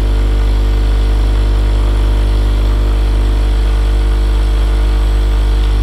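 Loud, steady electric hum: a low mains buzz with several overtones, unchanging, that cuts off suddenly at the end.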